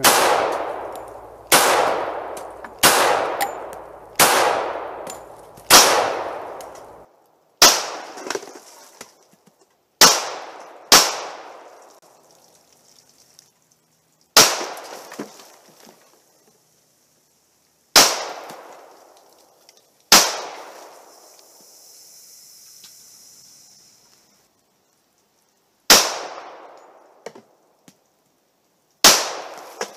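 Glock 21 Gen 4 pistol firing .45 ACP 230-grain rounds: about a dozen single shots at an irregular pace, one to four seconds apart, with a pause of about six seconds before the last two. Each shot is a sharp crack followed by a long echoing decay.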